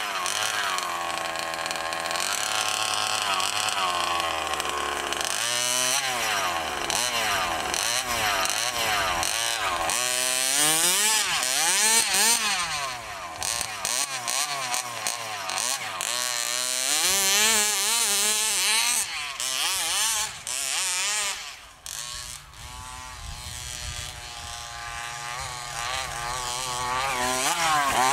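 27cc two-stroke gas engine of a large-scale radio-controlled truck revving up and down over and over, its pitch rising and falling with the throttle and dropping back briefly a couple of times.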